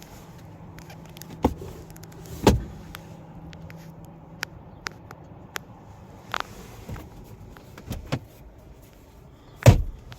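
Knocks, thumps and small clicks from handling inside a car's cabin, the loudest about a second and a half in, again a second later, and near the end. A faint steady hum runs under the first few seconds.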